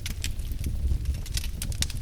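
Wood fire burning in a fireplace: a low, steady rumble of flames with scattered sharp crackles and pops of burning logs.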